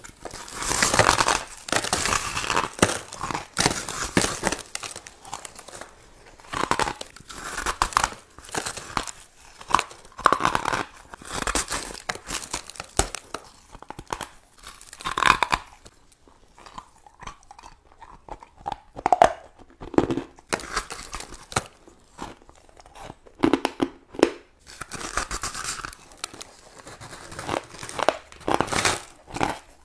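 A person biting into a large slab of purple crushed ice and chewing it, with loud crisp crunching. The crunching is dense for the first few seconds, then comes in separate bursts every second or two as the mouthfuls are chewed.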